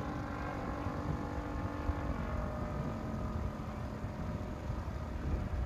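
Wind rumbling on the microphone, with a steady engine drone in the background that drops slightly in pitch about two seconds in.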